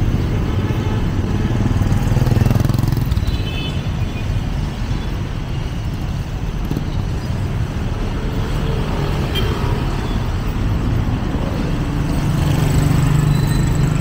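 Busy street traffic: motor vehicles' engines running close by over a steady street din, the rumble swelling about two seconds in and again near the end as vehicles pass.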